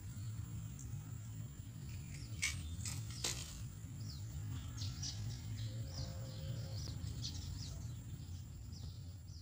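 Small birds chirping in many quick, short calls, thickest from about four seconds in, over a steady high thin whine and a constant low rumble. Two sharp clicks come between two and three and a half seconds in.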